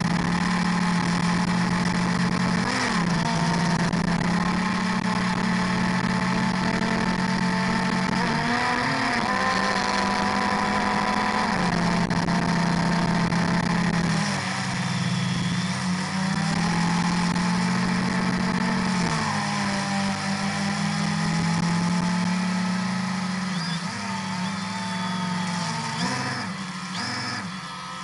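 Drone's motors and propellers humming steadily in flight, heard from the onboard camera, the pitch stepping up and down as the throttle changes. A low rumble underneath eases off about halfway through.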